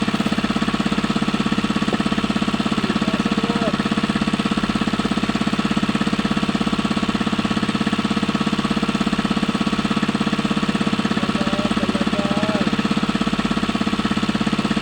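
A small engine running steadily with a fast, even chugging beat.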